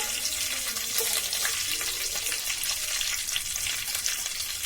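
Tempering spices (mustard seeds, dried red chillies, curry leaves, cinnamon, cloves and freshly added fennel seeds) sizzling in hot oil in a heavy pan, with a steady hiss and frequent small crackles and pops.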